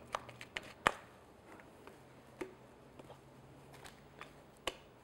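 Spatula scraping whipped cream out of a glass mixing bowl and knocking against it: a scattering of light clicks and taps, the sharpest about a second in and again near the end.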